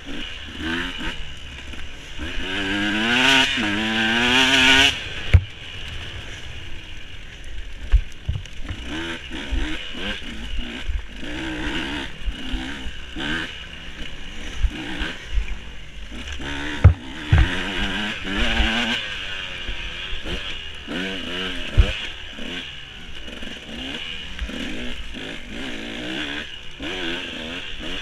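Off-road dirt bike engine revving up and down as it is ridden along a rough woods trail, with one long rising rev about three to five seconds in. Several sharp knocks and some clatter come from the bike over the bumpy ground.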